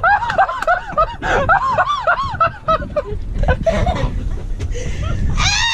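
A woman laughing hard in quick high-pitched bursts, several a second, which break off into a low rumble; near the end she lets out a long, high shriek.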